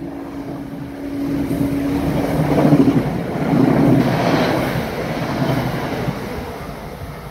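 Amtrak Keystone passenger train's stainless-steel coaches rushing past at speed close by: a loud roar of wheels on rail and air, with a low steady hum that fades out about three seconds in. Wind buffets the microphone.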